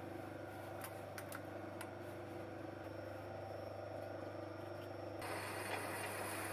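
Myford lathe running with a steady low hum, with a few light clicks near the start. About five seconds in a harsher hiss sets in suddenly as a twist drill starts boring into the spinning steel work.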